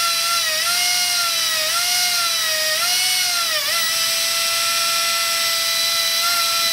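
Turnigy P2627L 4200kv brushless outrunner spindle motor whining steadily at high speed on a YEP 18A helicopter speed controller. Its pitch wavers only slightly a few times in the first four seconds as fingers grip the spinning bell, then holds level: the controller's speed regulation keeps the RPM up against the load.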